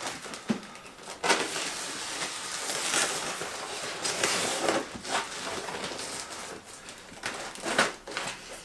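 Shipping box and packing material being opened by hand: irregular rustling and scraping with a few sharp crackles.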